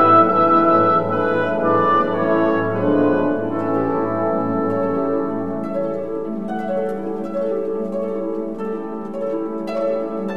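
Instrumental background music: held chords that give way to light plucked-string notes from about halfway through.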